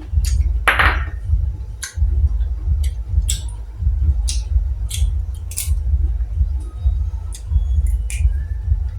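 Close-miked eating of boiled golden apple snails: a loud slurp about a second in, then sharp clicks of snail shells knocking together, with a heavy low rumble underneath.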